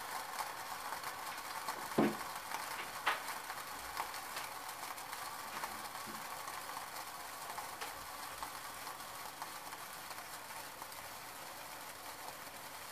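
Saucepan of water heating on an electric coil burner, not yet boiling: a steady faint hiss, with a few sharp ticks from the pan and element, the loudest about two and three seconds in.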